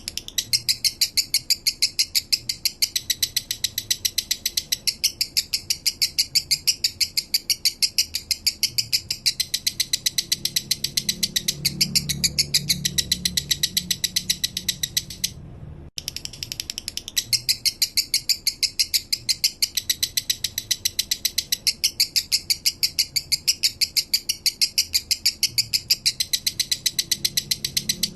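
Male lovebird singing its slow 'minor' song: a long, rapid chattering of sharp chirps, about ten a second, with a brief break about halfway through before the chatter resumes.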